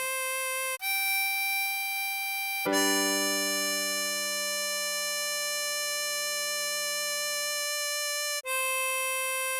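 Tremolo harmonica playing the melody slowly in long held notes, with a few clean changes of pitch. A fuller chord with lower notes underneath sounds for several seconds in the middle.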